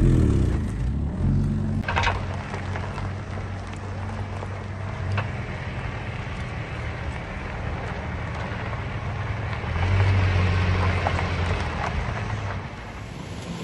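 4x4 SUV engine running with tyre and body noise on a rough dirt track, a sharp knock about two seconds in, and the engine louder for a couple of seconds near the end.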